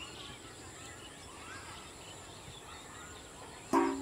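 Rural outdoor ambience with small birds chirping and calling throughout. Near the end, a sudden loud knock is followed by a short low tone.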